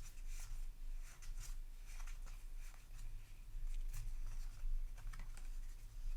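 Trading-card booster pack being opened and its cards handled: a run of short crinkles, rustles and light clicks from the wrapper and card stock, over a faint low hum.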